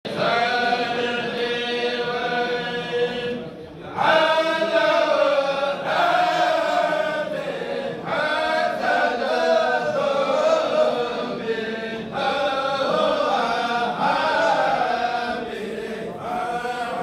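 A kourel, a group of men, chanting xassidas (Wolof Sufi devotional poems) together without instruments, over a steady held note. The chant drops briefly for a breath about three and a half seconds in, then comes back louder.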